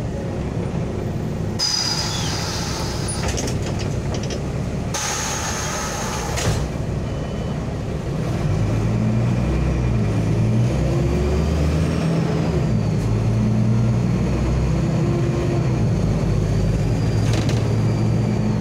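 LAZ articulated city bus at a stop: two sharp hisses of released compressed air from its pneumatic brakes and doors in the first seven seconds. Then, about eight seconds in, the diesel engine grows louder as the bus pulls away, with a high thin whine joining in soon after.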